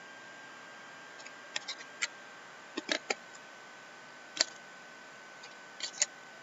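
Thick hockey trading cards being shuffled and handled, giving short sharp clicks and snaps a few at a time, the sharpest about four and six seconds in.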